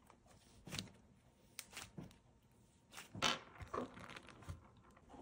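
Fluffy green slime being squeezed, stretched and kneaded by hand, giving a few faint, soft crackles and squishes, the loudest about three seconds in.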